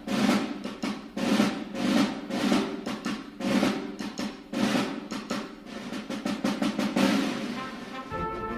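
Music led by drums, with rolls and repeated snare hits; sustained horn-like tones come in near the end.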